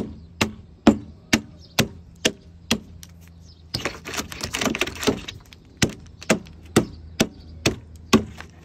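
A rubber mallet striking the thin slats of wood left between saw kerfs in a timber rafter, knocking them out to clear a notch, with sharp regular knocks about two a second. About three and a half seconds in there is a stretch of denser crackling as the wood breaks away, and then the knocks resume.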